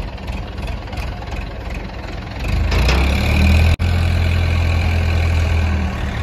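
Heavy diesel vehicle engine idling, growing markedly louder about two and a half seconds in and then running steadily.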